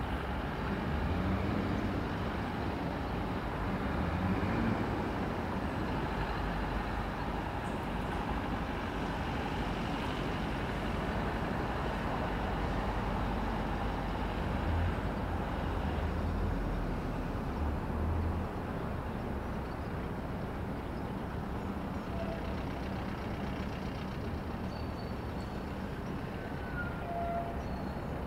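Steady rumble of road traffic: a continuous wash of passing vehicles with a low engine drone. A few faint, brief chirps come near the end.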